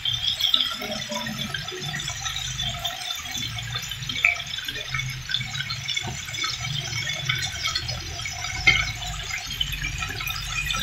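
Oil sizzling and crackling steadily in a frying pan as pork-stuffed tomatoes fry, with a couple of sharper pops and a low burner rumble underneath.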